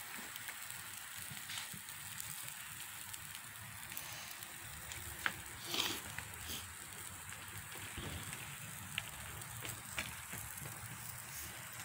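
Fish heads on foil over a small charcoal grill, sizzling with a steady hiss and scattered crackles and pops. The sharpest pops come about five to six seconds in.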